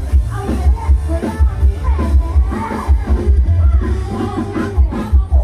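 Loud live band music from a Thai rot hae music truck's sound system, a heavy pulsing bass beat under keyboard and guitars with a woman singing into a microphone.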